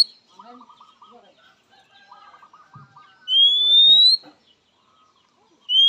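Oriental magpie-robin giving a long, clear whistle that rises in pitch, about a second long, a little over three seconds in. A second rising whistle begins just before the end.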